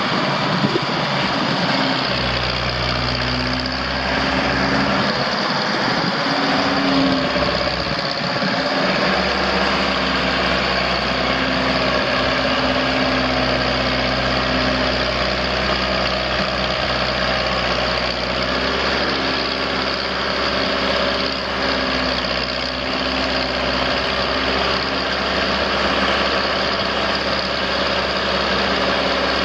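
John Deere 3020's four-cylinder gas engine idling steadily, its note shifting briefly about six to eight seconds in.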